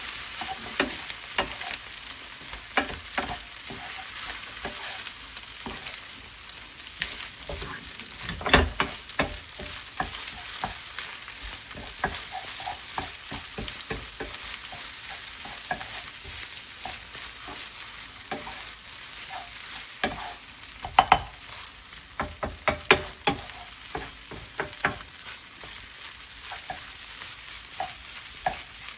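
Egg and Spam fried rice sizzling in a frying pan as it is stir-fried. A steady hiss runs under frequent small scraping clicks, with louder knocks about eight seconds in and again around twenty-one seconds in.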